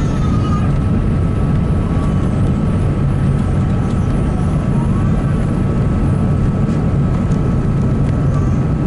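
Steady cabin roar of an Airbus A380's four engines and airflow, heard from inside the passenger cabin during the take-off or climb, with a faint steady whine above it.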